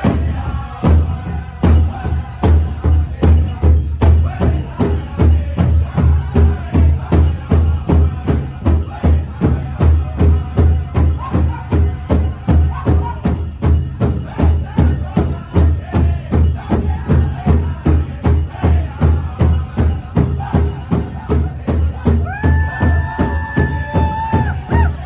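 Powwow big drum struck in a steady even beat, about three strokes a second, with a group of singers chanting over it. Near the end a steady high tone is held for about two seconds above the singing.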